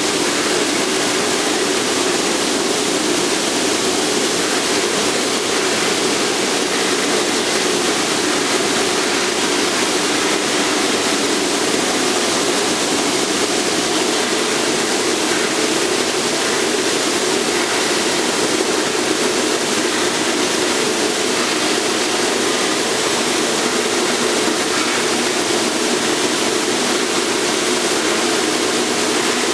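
Steady, unchanging rushing noise of industrial machinery, with no breaks or strikes and its weight in the low-middle range.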